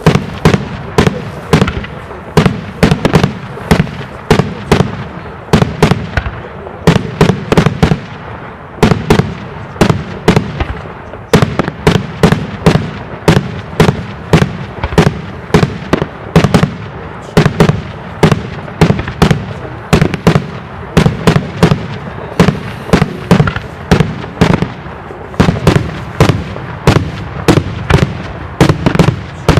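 Daytime fireworks display: a rapid, unbroken string of loud bangs, about two a second, some coming in quick clusters.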